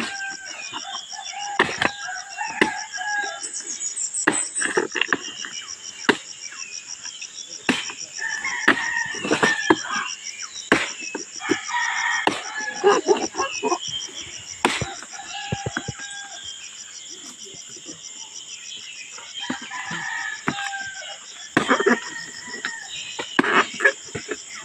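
Machete chopping into a felled palm trunk: sharp single strikes at irregular intervals, usually a second or two apart. Behind them, a steady, finely pulsing high insect drone and roosters crowing.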